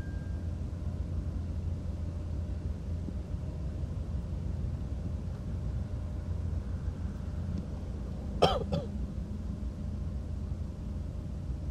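A steady low rumble of background noise, broken about eight and a half seconds in by one short throat sound from a person, a cough or throat-clearing in two quick parts.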